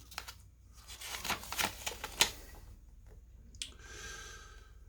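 Paper and cardboard handling: a run of crisp rustles and clicks as a small paper quick start guide and its packaging are handled, with a sharp tap about two seconds in and a softer rustle near the end.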